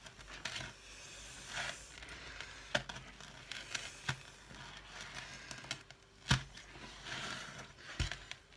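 Hands squeezing, lifting and pulling very sticky bread dough in a plastic mixing bowl: irregular squelching and sticky tearing sounds, with a few sharp knocks against the bowl, the loudest about six seconds in.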